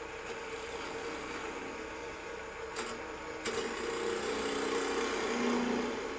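Wood lathe running with a gouge cutting a small bevel into the end of a spinning green-wood twig pot, to give the drill bit a place to start. A steady motor hum under the cutting hiss, two sharp ticks about three seconds in as the tool bites, then the cut grows louder and rougher until just before the end.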